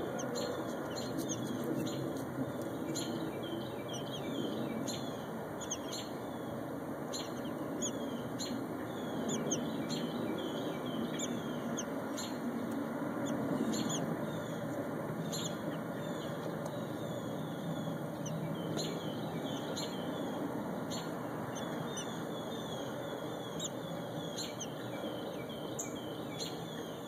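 Adult American robin calling near its nest: short, high chirps, one or two a second, agitated at the intruder, over a steady low background noise.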